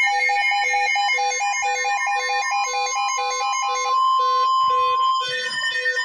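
Emergency alert attention tones: electronic beeps in several pitches sounding together in a fast repeating pattern, several pulses a second, with one tone held steady for about a second past the middle.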